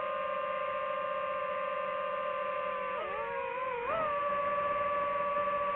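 DJI FPV drone's motors and propellers whining in flight at a steady pitch, which dips and rises briefly about three and four seconds in as the throttle changes.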